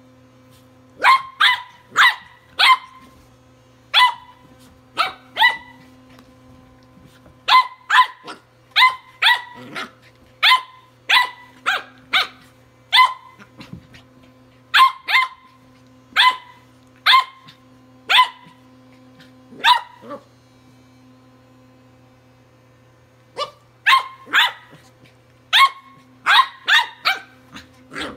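Welsh Corgi puppy barking at a Sonicare electric toothbrush: dozens of short, sharp barks in quick runs, with a pause of a few seconds about two-thirds of the way through. The toothbrush buzzes steadily underneath, stopping and starting now and then.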